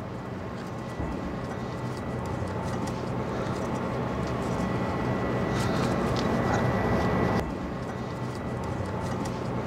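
A steady mechanical hum with a faint high whine, dropping off suddenly about seven seconds in, with a few light clicks and scrapes of a plastic filter bowl being threaded onto its housing by hand.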